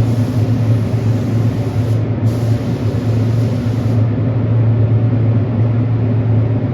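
Spray gun hissing as it lays down a heavy second coat of clear, in two passes with a brief break about two seconds in, then stopping about four seconds in. A steady machine hum runs underneath.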